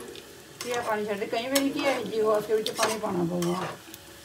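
Spatula stirring a thin mixture in a steel saucepan, clicking against the pot several times. A person's voice talks over it and is the loudest sound.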